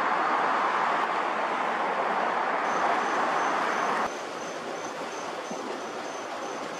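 Twin-engine jet airliner's engines at takeoff thrust, heard from behind during the takeoff roll as a steady rushing roar that drops suddenly to a quieter, distant rush about four seconds in. An insect chirps faintly in the background, a high note repeating a few times a second.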